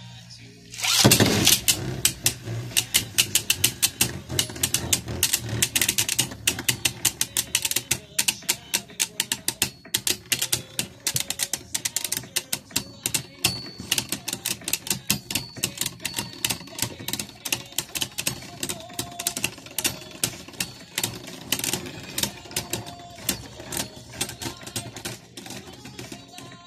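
Two Beyblade Burst Sparking tops, Lucifer the End and Helios Volcano, launched into a plastic stadium with a loud hit about a second in, then spinning and clashing in a rapid, clattering run of sharp clicks that slowly thins out.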